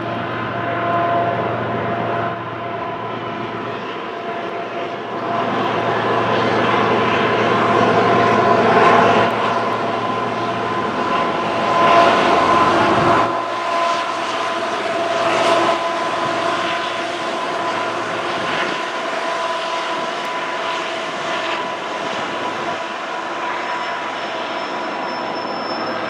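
Two GE ET44AC Tier 4 GEVO diesel-electric locomotives working a heavy stack train as they pass, their engines running with a steady high whine over a low rumble. It grows louder to a peak as the locomotives go by about halfway through, then the rumble drops away, leaving the steady whine and the running noise of the container cars rolling past.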